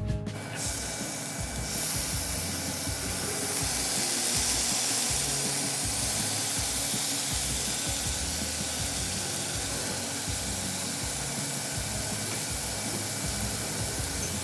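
Dry beans and sautéed greens sizzling in a stainless steel pan: a steady frying hiss that sets in about half a second in and grows stronger just before two seconds.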